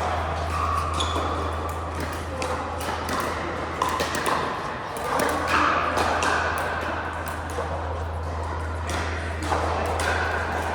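Pickleball paddles hitting a plastic ball: sharp pocks at irregular intervals over a steady low hum.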